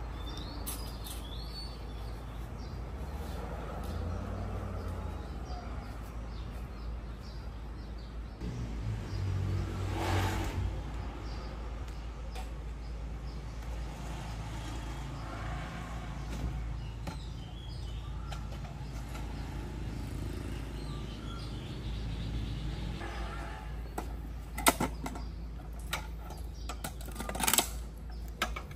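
Outdoor street ambience with birds chirping and a steady low hum, and a vehicle passing about ten seconds in. Near the end, metal-legged folding stools with wooden seats clack and knock sharply as they are handled and set down.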